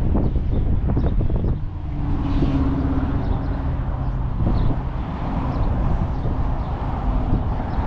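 A motor vehicle running with rumbling road and wind noise, and a steady engine tone that rises out of it about two seconds in.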